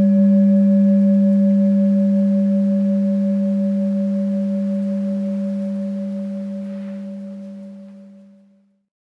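Tibetan singing bowl ringing after a single strike: a low steady tone with a fainter higher overtone that slowly fades and dies away near the end. It is sounded as a meditation interval chime.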